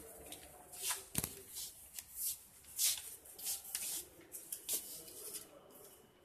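Sheets of paper rustling and crinkling in a run of short swishes as posters are handled and pressed onto a notice board, with one sharp tap a little after a second in.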